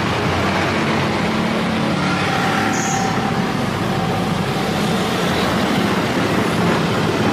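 Steady street traffic noise from cars and motorcycles passing on a busy road, with engines humming under it.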